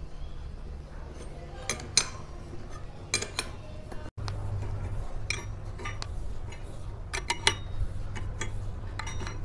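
Steel ring spanner clinking against the nut and frame of a blind bearing puller as it is turned in short strokes, drawing the needle bearing out of a scooter clutch pulley. Irregular sharp metallic clicks, some in quick pairs, over a steady low hum.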